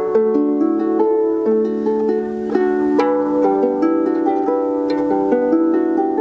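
Celtic harp being plucked, a run of notes ringing on and overlapping each other.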